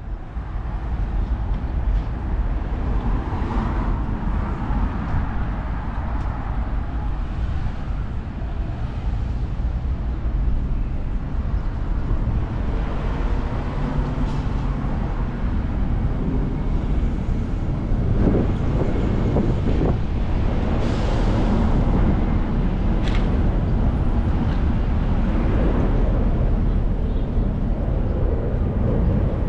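Outdoor street noise: steady road traffic with a continuous low hum.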